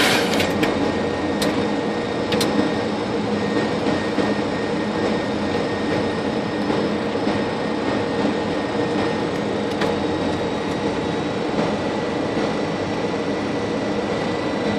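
Steady flight-deck noise of a Boeing 737 on final approach: air rushing past the cockpit over a low engine hum, with a thin steady high whine. Two faint clicks sound between one and three seconds in.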